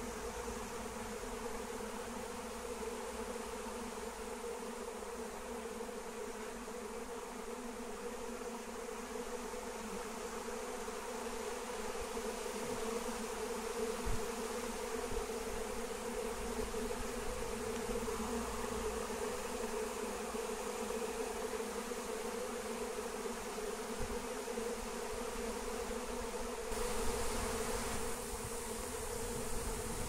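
A swarm of honey bees buzzing: a steady, low hum of many wings that holds one pitch throughout.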